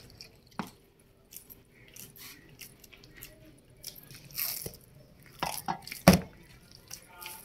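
Hands kneading atta dough in a stainless steel bowl: irregular wet squelching and crunching, with sharp knocks against the bowl, the loudest about six seconds in.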